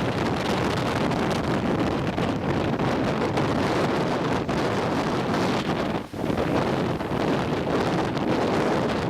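Strong wind buffeting the microphone over the rush of Pacific Ocean surf, with a brief lull about six seconds in.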